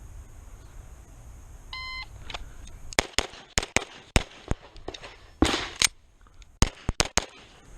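A shot-timer beep, then a Beretta 92 Elite LTT 9mm pistol firing fast strings of shots, mostly in quick pairs. Partway through there is a short break for a magazine change, and then another rapid burst of about five shots.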